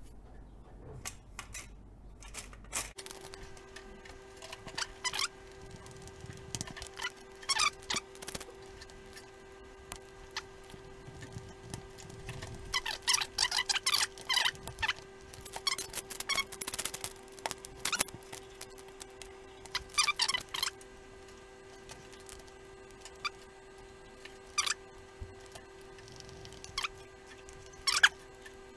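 Scattered clicks and light knocks from handling a flexible ball-jointed tripod arm and a metal crocodile clip while fitting them together, busiest about halfway through, with a sharp click near the end. A steady faint hum runs underneath from about three seconds in.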